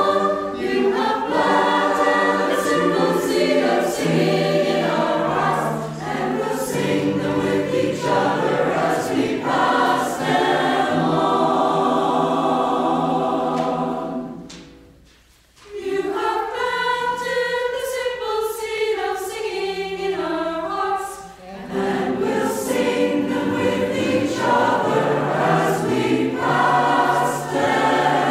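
Mixed community choir singing together. About halfway the singing stops for a moment, then comes back in a lighter passage without the low voices before the full choir returns.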